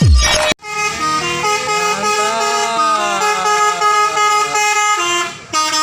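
Tour bus's telolet horn playing a melody of several overlapping tones that change pitch and slide up and down, with a short break about five seconds in before it sounds again. The tail of electronic music with a kick drum is heard in the first half second.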